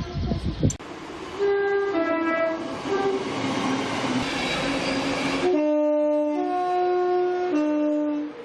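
Train's two-tone horn sounding a run of alternating high and low notes, each about half a second to a second long, over the rushing noise of the train. The last three notes, low, high, low, are the loudest and stop abruptly near the end. Low rumbling fills the first second.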